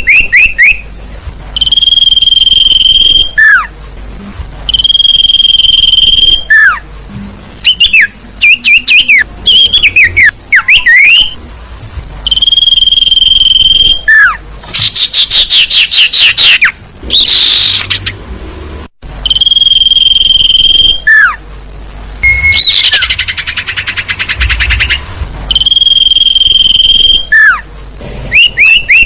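Bird-lure recording of sirtu calls: long, steady, high whistled notes about a second and a half each, repeated every few seconds, alternating with quick runs of short falling chirps and a couple of fast buzzy trills.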